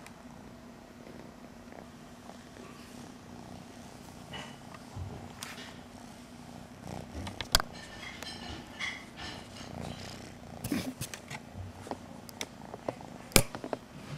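Kitten purring steadily close to the microphone, with scattered sharp clicks and knocks, two of them louder than the rest: one about halfway through and one near the end.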